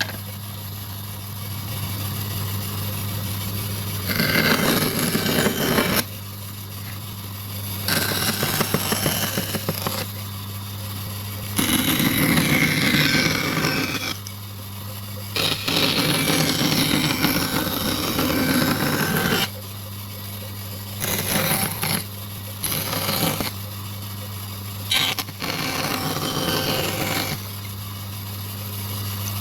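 Woodworking power tool running with a steady motor hum, cutting into wood in about seven louder stretches of one to four seconds each.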